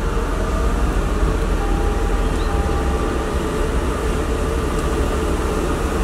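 Lexus SC430 retractable hardtop closing: the roof mechanism runs with a steady low hum and a faint steady whine.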